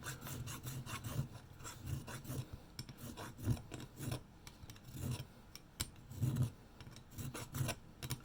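A fine hand file scraping along the rim of an espresso machine's boiler cap in uneven strokes, roughly one a second, smoothing a chipped edge down for its gasket.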